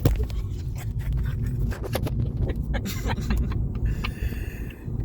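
Car interior road noise: a steady low rumble of the moving car, with scattered light knocks and rattles and a brief steady high tone about four seconds in.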